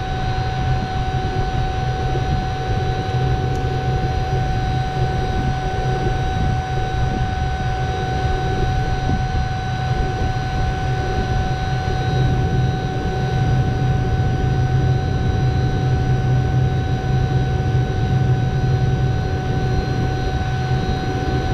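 Refrigeration vacuum pump running steadily while it evacuates a mini-split line set, a constant low hum with a steady high whine over it.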